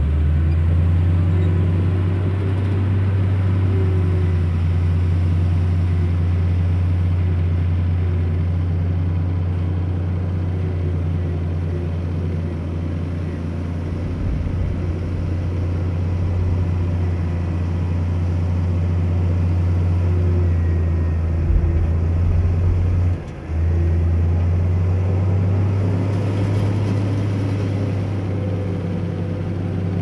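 Diesel engine of heavy earthmoving equipment running steadily under load with a deep, even drone, briefly dropping off about twenty-three seconds in before picking up again.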